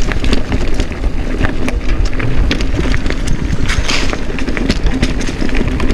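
Mountain bike rattling and clattering as it rolls over a rocky, rooty trail: a steady rumble of tyres on rock and dirt broken by frequent sharp knocks of the frame, chain and wheels, with a short hiss about four seconds in.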